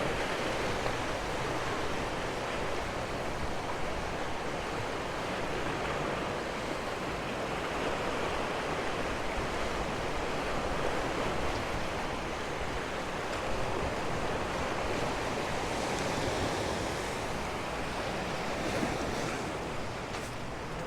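Sea surf washing steadily on the shore, with wind on the microphone.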